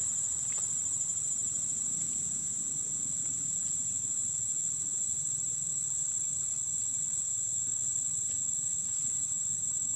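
Steady, high-pitched drone of insects, one unbroken shrill tone.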